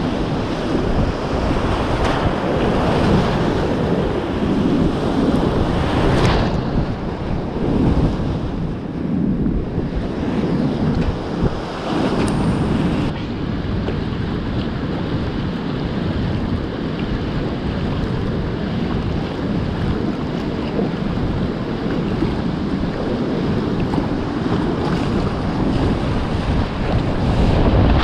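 Whitewater rapids rushing and splashing around a kayak, with wind buffeting the microphone; the splashing grows louder near the end as the boat plunges into a rapid.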